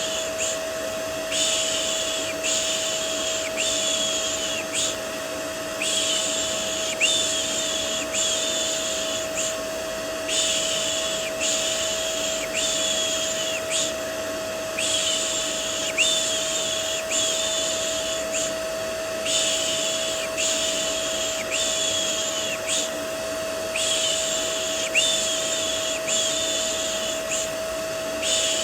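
Vacuum cleaner white noise, a steady hiss with a constant whine, under a person's rhythmic 'shh' shushing for calming a baby. The shushes come quickly, about one every 0.7 seconds, in runs of five or six with a pause of about a second between runs.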